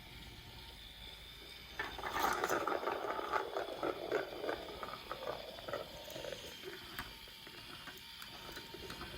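Plastic marble-run parts and marbles clattering: a dense rattle of small clicks starts about two seconds in and dies away a few seconds later.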